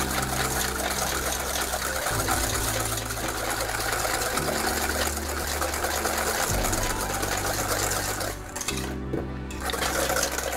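Background music with a bass line that changes about every two seconds, over the fast, rhythmic scraping and clinking of a wire whisk beating batter in a stainless steel bowl.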